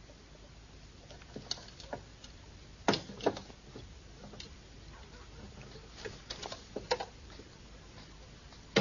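Light, irregular knocks and clinks of a cooking pot and its handle against a wooden board as hot polenta is tipped out onto it. About a dozen scattered taps, the loudest about three seconds in and again near the end.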